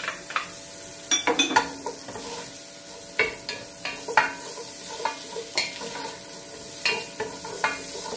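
Wooden spoon stirring and scraping chopped onion, garlic and ginger around a stainless steel pot, with irregular knocks of the spoon against the pan, over a steady sizzle of the frying oil: the aromatics being sautéed.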